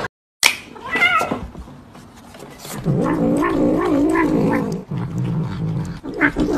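Domestic tabby cat vocalising while it eats: a short, wavering, higher-pitched call about half a second in, then from about three seconds in a low, wavering, drawn-out call, broken by short pauses.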